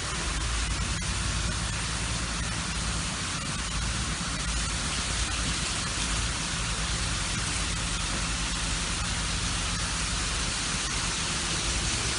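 Steady rushing hiss of water jetting from a fire hose nozzle and spraying down, with a low steady hum underneath.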